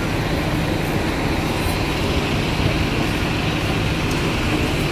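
Double-decker buses' diesel engines running at a bus terminus, a steady low rumble with a faint hum, mixed with passing road traffic.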